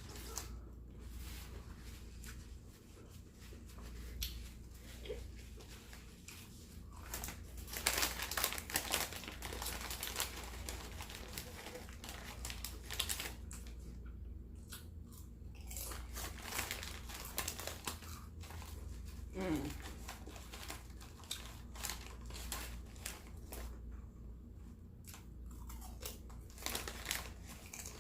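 Close-miked eating: chewing and crunching of food with crinkling sounds, a dense run of small crackles about a third of the way in and more near the end.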